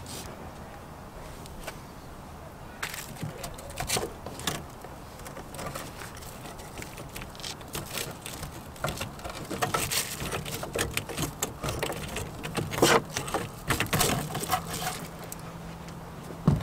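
Irregular metallic clicks, knocks and scrapes of a wrench working a rusted transmission cooler line fitting, starting a few seconds in and growing busier and louder partway through.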